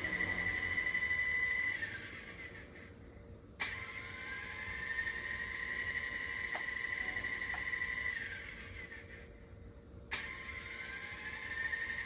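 Whine of a small toy RC helicopter's electric rotor motor, cutting out about two seconds in and then spinning back up twice, each time rising in pitch before holding steady. Each spin-up opens with a sharp click.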